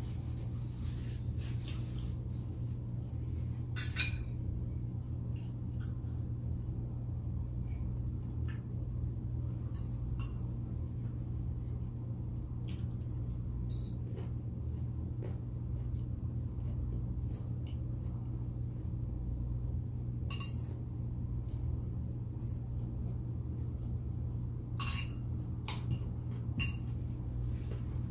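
Knife and fork clinking and scraping on a plate while steak is eaten, in scattered sharp clicks every few seconds, over a steady low hum.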